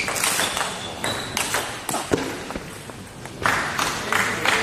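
Table tennis rally: the ball clicks off the players' bats and bounces on the table in a quick, irregular exchange of sharp taps.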